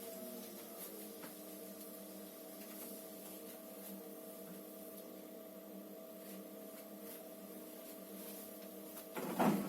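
Electrolux EWT 1377 VIW top-loading washing machine running with a faint, steady mechanical hum made of several steady tones. A louder, rougher noise starts near the end.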